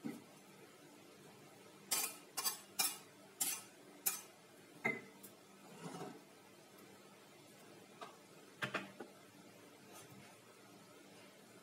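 Metal cookware being handled: a quick run of sharp clanks about two seconds in, then scattered knocks and clinks of pot, lid and metal spatula.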